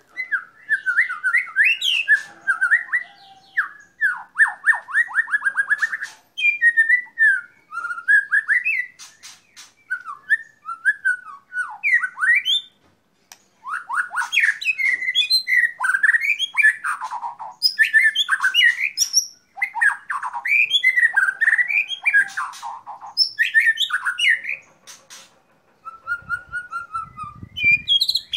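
White-rumped shama singing a long, varied song of whistled phrases and fast trills, broken by short pauses.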